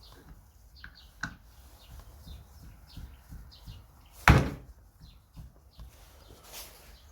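Small clicks and taps of screws and chainsaw parts being handled during reassembly, with one loud knock about four seconds in.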